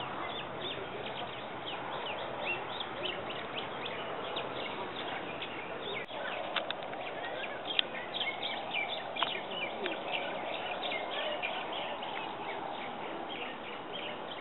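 Many birds chirping continuously in short high calls over a steady outdoor hiss, with a couple of sharp clicks around the middle.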